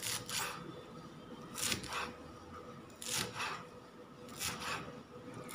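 Kitchen knife chopping fresh coriander leaves on a plastic cutting board: short crisp cuts in pairs, a pair about every second and a half.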